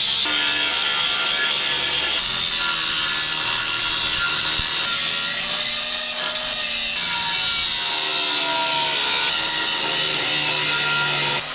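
Half-worn abrasive cutoff wheel on a small cordless tool cutting through metal plate: a steady, loud, high-pitched grinding whose pitch wavers with the load. It cuts off suddenly near the end.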